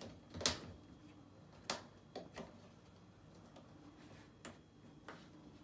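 About half a dozen sharp clicks and taps at irregular intervals, the loudest about half a second in, as fingers and a small tool work a Samsung front-loader's rubber door seal into place around the door opening.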